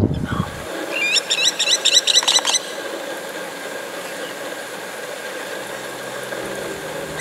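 A short low thump at the very start, then about a second in a fast run of around eight high squealing animal calls, each sliding in pitch, over about a second and a half. A steady hum runs underneath.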